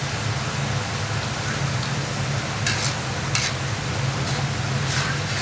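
Broth bubbling and hissing around the rice in a large kazan of Uzbek pilaf, the stage where the water boils off through the rice. A metal skimmer scrapes across the rice three times, briefly each.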